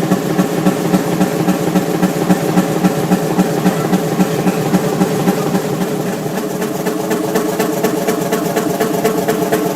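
A large engine running steadily, its exhaust beating in an even rhythm of about three pulses a second.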